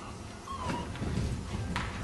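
Horse cantering loose on the sand footing of an indoor arena: dull, repeated hoofbeats.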